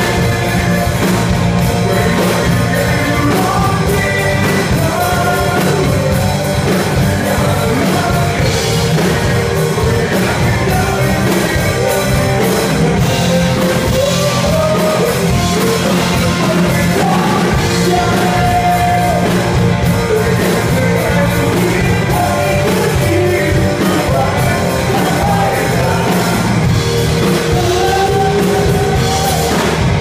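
Live rock band playing a song: electric guitars, bass and drum kit, with a lead singer singing over them, heard in the room.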